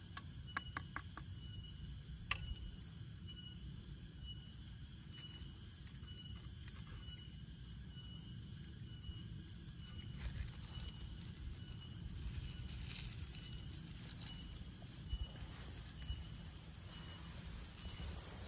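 Steady chorus of forest insects, with a thin high chirp repeating at an even pace. A few light clicks near the start and soft rustling come from dry bamboo shavings and tinder being handled.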